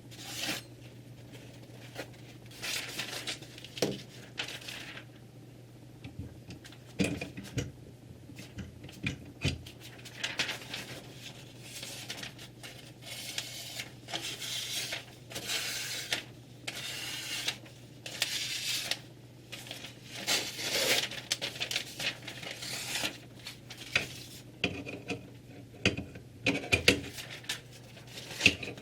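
Metal clinks and clatter with intermittent short scraping strokes, from handling a Ruixin Pro 3 guided knife sharpener and a kitchen knife.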